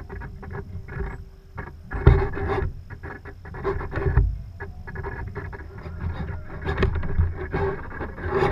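Wind buffeting the microphone and water rushing and splashing along a sailing boat's hull as it sails, in irregular gusts, the strongest about two and four seconds in.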